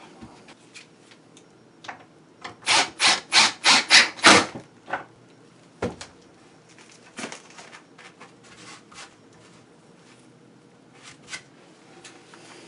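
Rasping strokes on wood, a quick run of about seven between two and four and a half seconds in, followed by scattered lighter knocks and scrapes of plywood pieces being handled.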